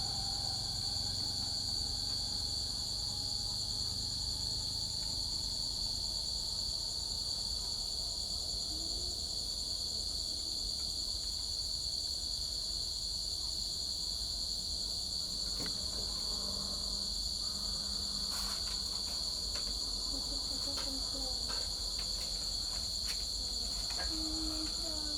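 Feeder crickets singing, a continuous high-pitched trill, with a few faint clicks in the second half.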